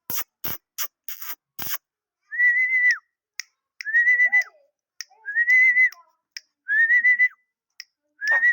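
A few sharp clicks, then five short, high, whistle-like notes, each just over half a second, repeated about every second and a half.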